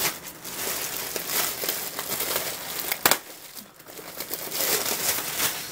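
Clear plastic packaging crinkling and rustling as hands pull it open, with one sharp snap about three seconds in.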